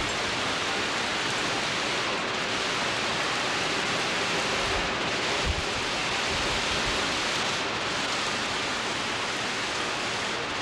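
Heavy hurricane rain pouring steadily in torrents onto the woods, a dense unbroken hiss. One brief low thump comes about halfway through.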